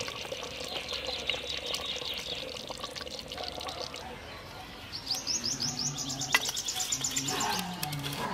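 Small birds chirping: a fast run of high chirps, then from about five seconds in a quick, even series of high, falling chirps, about six a second, lasting some two and a half seconds.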